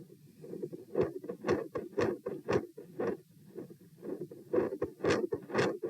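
Heartbeat heard through a chest recording, about two beats a second, with a continuous machinery-like murmur running as a low rumble between the beats.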